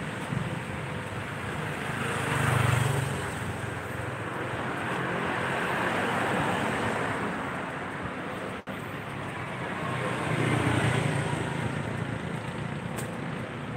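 Street traffic: the engines and tyres of passing vehicles as a steady rushing noise, swelling as a vehicle passes close about two and a half seconds in and again around eleven seconds.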